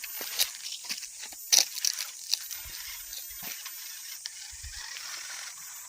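Small electric RC off-road car driving over rough dirt, tyres and chassis crunching and clattering with irregular sharp knocks. The loudest knock comes about one and a half seconds in, and it settles to a steadier scraping after about two and a half seconds.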